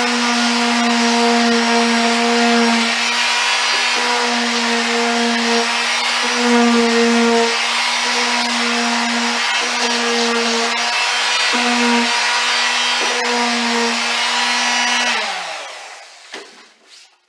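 Electric power sander running steadily as the edge of a paddle blank is pressed against it and sanded smooth, its whine dipping briefly now and then under the load. About fifteen seconds in it is switched off and the whine falls as it spins down, followed by a few light knocks.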